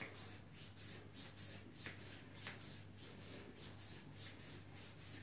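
Hands rubbing a leg in brisk massage strokes, a quiet, even rhythm of about three to four rubbing strokes a second.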